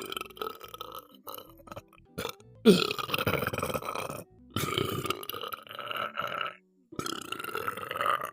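A person burping deliberately: about four long, drawn-out belches in a row, each lasting one to two seconds, with short breaths between. The loudest comes nearly three seconds in.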